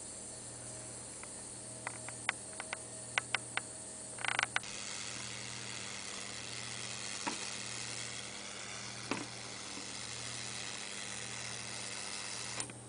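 Small solid-state Tesla coil driving a xenon plasma ball: a steady high hiss with faint steady tones. A run of sharp clicks and a short crackling burst come about two to four and a half seconds in, after which the hiss is louder until a click near the end.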